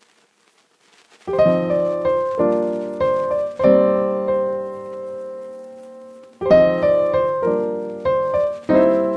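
Piano music: chords and notes struck in groups, each ringing and fading, starting about a second in after a near-silent opening.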